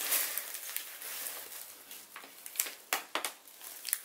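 Rustling and crinkling of a fabric Ju-Ju-Be Hobo Be diaper bag and brown kraft packing paper being handled in a cardboard box: a dense rustle for about the first second and a half, then a few short, sharp crinkles and taps.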